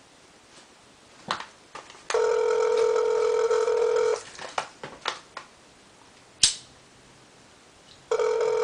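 Telephone ringback tone heard over a speakerphone, the ringing of an outgoing call not yet answered: a steady buzzy ring lasting about two seconds, then the same ring again about four seconds later. A few sharp clicks and one louder knock fall between the rings.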